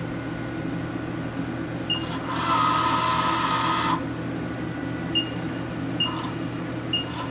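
Haas VF-1 CNC machining center humming steadily. Its coolant system is switched on for under two seconds, a loud hissing spray with a whine, starting about two seconds in. Short high beeps sound several times, typical of the machine's control panel keys being pressed.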